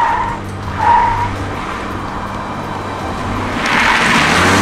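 Lexus IS 300h hybrid saloon driving with a steady low hum, two short tyre squeals in the first second or so, then a rush of tyre and road noise swelling as it passes close by from about three and a half seconds in.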